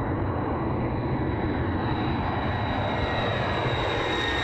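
Jet aircraft engines running: a steady deep rumble with a thin high turbine whine that grows stronger toward the end.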